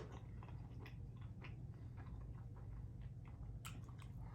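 A person chewing food close to the microphone: irregular soft mouth clicks and smacks, faint over a steady low hum.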